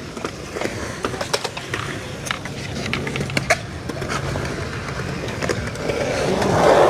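Skateboards rolling on a concrete skate bowl, with scattered sharp clacks of boards and trucks. Near the end a board rolls close by and the rolling noise swells louder.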